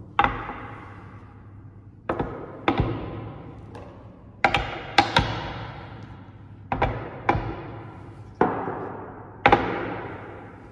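Wooden chess pieces set down one by one on a wooden chessboard: about ten sharp knocks at uneven intervals, some in quick pairs, each with an echoing tail that dies away over about a second.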